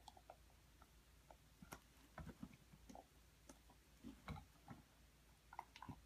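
A red heeler chewing a bone-and-ball chew toy: faint, irregular clicks and soft knocks of teeth on the toy, coming in small clusters.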